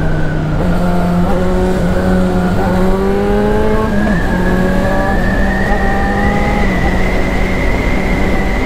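Yamaha XJ6's 600 cc inline-four engine accelerating hard through the gears, its pitch climbing with a brief dip at each of several upshifts. Wind rushes over the helmet-mounted camera.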